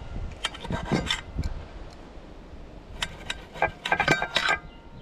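Clatter, clinks and scraping of utensils and dishes as food is served onto plates, in two busy spells of short knocks and rubbing.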